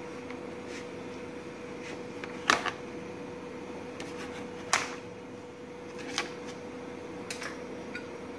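A knife knocking and scraping against a steel tray while cutting a set pudding: scattered sharp clicks, the loudest about two and a half seconds in and again near five seconds, over a steady low hum.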